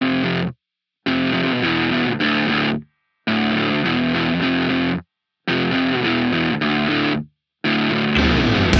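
Distorted electric guitar playing a rock riff in short phrases, each stopping dead for a moment. A fuller, louder band sound comes in near the end.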